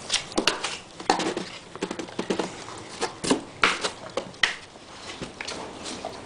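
Kittens scrabbling about on the cardboard floor of a box: irregular sharp scratches and taps of small claws and paws on cardboard.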